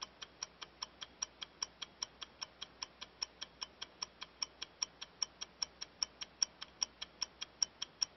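Rapid, perfectly even electronic ticking, about five ticks a second, each tick short and sharp, with almost no other sound behind it.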